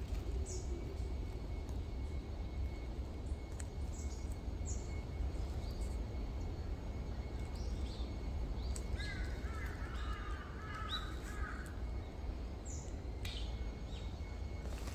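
Woodland ambience with a steady low rumble and scattered short high bird chirps. A bird calls several times in a quick run about nine seconds in.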